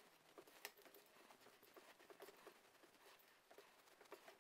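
Faint, irregular scraping and light knocks of a wooden spoon stirring crumbly cookie dough in a glass bowl.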